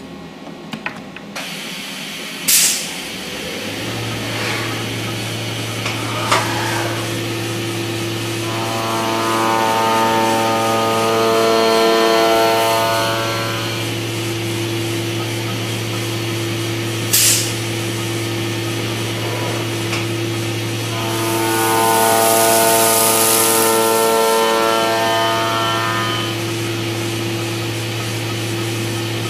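Multi-axis CNC milling machine cutting a brass part held in a rotary fourth-axis chuck: a steady low machine hum, with a pitched whine made of several stacked tones rising in twice for a few seconds as the cutter works, a hiss during the second whine. Three short, sharp noises break in, about two seconds in, near the middle and at the end.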